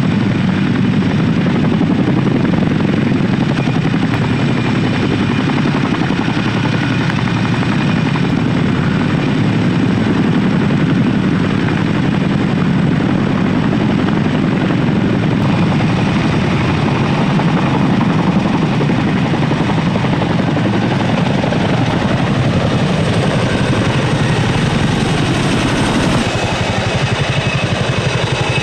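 CH-47 Chinook tandem-rotor helicopters flying with underslung loads: a loud, steady, rapid beat of rotor blades, shifting in pitch near the end.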